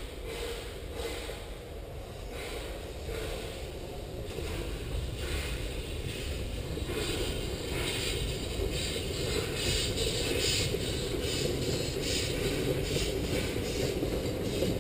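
Narrow-gauge 2-6-2T steam locomotive 6A working its train, its exhaust chuffing at about two beats a second and growing louder as it approaches.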